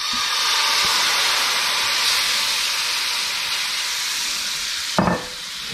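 A splash of vermouth hitting a hot stainless skillet of sautéed morels and shallots, hissing and sizzling loudly as it boils off, easing slowly over several seconds. A short knock near the end.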